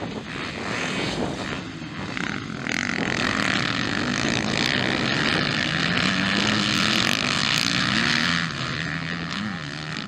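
Several motocross dirt-bike engines revving hard, the pitch rising and falling as riders work the throttle through a corner. The sound gets much louder about three seconds in as a group of bikes passes close, and drops back near the end.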